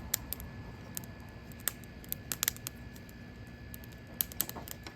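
Small wood fire crackling in a perforated stainless-steel hobo stove: sharp pops and snaps at irregular moments, some bunched together about two and a half seconds in and again near the end, over a low steady hum.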